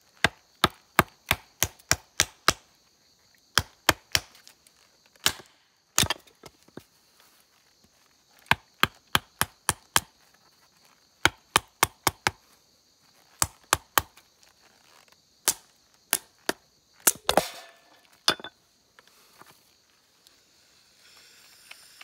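Firewood being split into kindling on a wooden stump chopping block: dozens of sharp wooden knocks in quick runs of a few blows each. About 17 seconds in there is a longer splintering crack as a piece splits apart.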